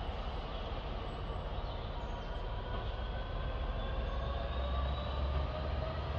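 Diesel freight locomotive approaching with its train, a low engine rumble growing slightly louder while its engine note climbs slowly.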